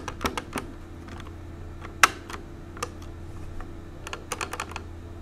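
Light clicks and taps of small metal parts as the numeral-wheel carriage of a 1920s Monroe model K mechanical calculator is handled and picked at. There are a few clicks near the start, a single louder click about two seconds in, and a quick run of clicks a little after four seconds.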